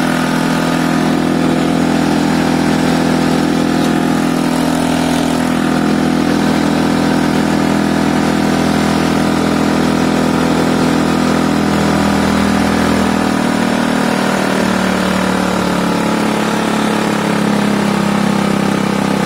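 Piaggio Fly 125 scooter's single-cylinder four-stroke engine idling fast on choke. About two-thirds of the way through, the note drops a little lower and stays steady as the carburettor idle screw is turned down.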